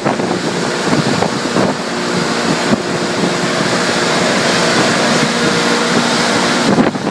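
Grain milling system running steadily: augers carrying barley into a hammer mill, a loud even machine noise with a constant hum.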